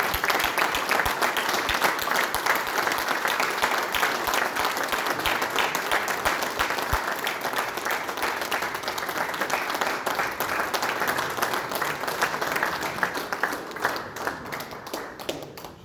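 Audience applauding in a large hall, a long sustained round of clapping that dies away near the end.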